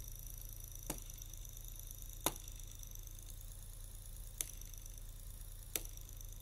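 Mini DC electric motor of a homemade plywood turntable running with a faint, steady high whine and low hum, driving the platter through a rubber-band belt. Four sharp clicks come at uneven intervals of one to two seconds.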